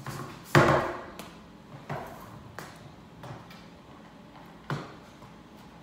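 Skateboard clattering on a concrete garage floor: a loud smack of the deck and wheels hitting the floor about half a second in, followed by a few lighter knocks.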